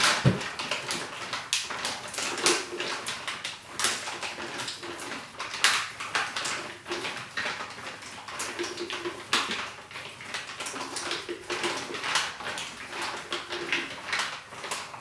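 Plastic bag of fizzing vinegar and baking soda crinkling and crackling in irregular bursts as it is squeezed by hand, pushing out the carbon dioxide it makes.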